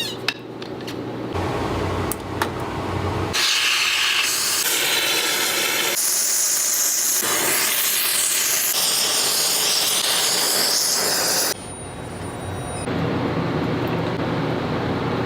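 Workshop machine noise that changes abruptly several times, with a loud steady hiss from about three seconds in until near the end, then a quieter machine sound.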